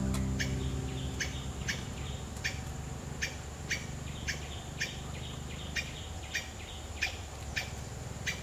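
A small bird repeating a single short, sharp chirp over and over, about two to three a second, at an even pace. A guitar chord fades out at the start.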